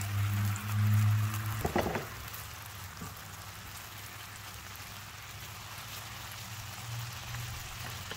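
Barberries sizzling in butter in a frying pan: a steady crackling hiss. In the first two seconds there is a low hum and a short clatter of a utensil against the pan.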